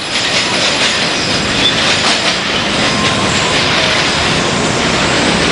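Freight train of container flatcars rolling by on steel rails: a steady, loud clatter of wheels running over the track.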